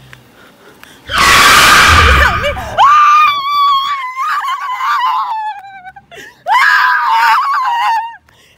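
A woman screaming: two long, wavering high screams. The first starts about a second in with a harsh, noisy blast, and the second falls in pitch at its end.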